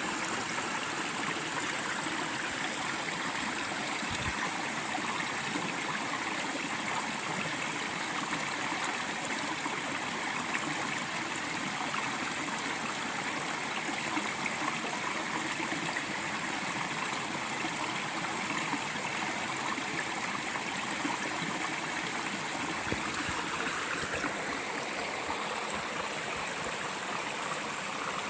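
Clear mountain stream rushing steadily over rocks, an even wash of running water.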